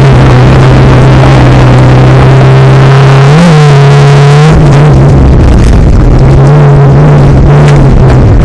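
Race car engine heard from inside the cockpit, running hard at a near-steady pitch and loud enough to overload the recording. About four and a half seconds in the note drops away briefly, then the engine picks up again at much the same pitch.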